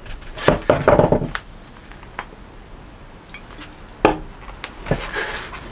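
Workbench handling noises: sharp knocks and clinks from a glass bottle of boiled linseed oil and a steel hammer being handled on a wooden bench. A cluster comes about a second in and single knocks come near the end.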